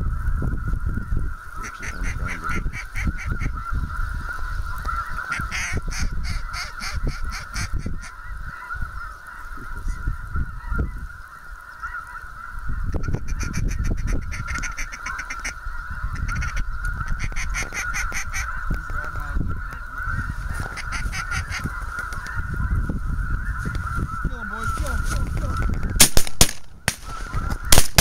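A large flock of geese calling and honking steadily, with wind rumbling on the microphone. In the last two seconds several loud shotgun shots go off in quick succession.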